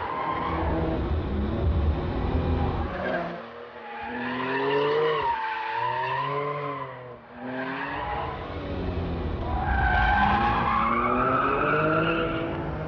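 RUF R Turbo sports car driven hard on a racetrack. In the middle the engine rumble eases off and the tyres squeal with a wavering pitch through a corner, then the engine pulls hard again with its pitch rising.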